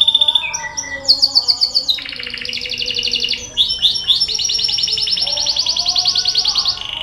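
Domestic canary singing a long song of fast rolling trills, each run of rapidly repeated notes held one to two and a half seconds before switching to a new pitch and rhythm; the longest trill runs from about four seconds in to near the end.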